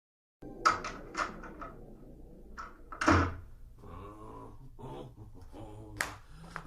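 A door being opened and shut: a run of knocks and latch clicks, a heavy thump about three seconds in, and a sharp click near the end.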